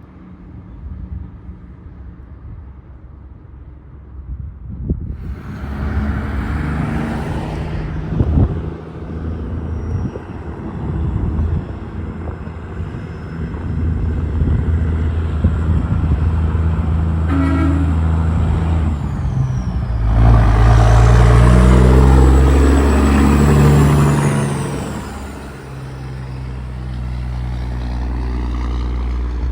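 Heavy diesel truck passing close by. Its engine gets louder, is loudest about two-thirds of the way through, then drops in pitch and fades as it moves away.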